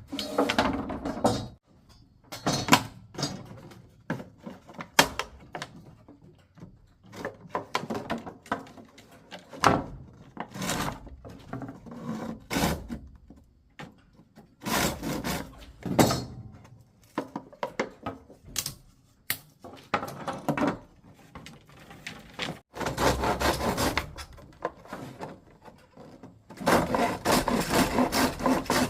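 Irregular wooden knocks and clatter, as of wood or bamboo being handled, with two longer rubbing or scraping stretches near the end.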